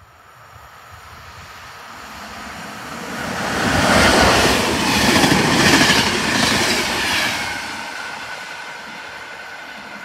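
Passenger train of blue-and-white Czech Railways coaches passing close: the rumble swells to a peak, with a run of wheel clacks about twice a second as the bogies go by, then fades. A thin high ringing lingers as it fades.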